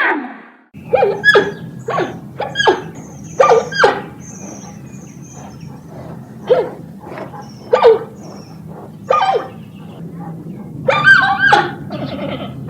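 A dog-like animal giving short, high barks or yips, about a dozen spaced irregularly, coming more thickly near the end. A steady low hum runs underneath.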